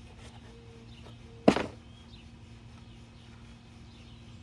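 A single sharp knock about a second and a half in, as the weather station's parts are handled on a workbench, over a faint steady hum and faint bird chirps.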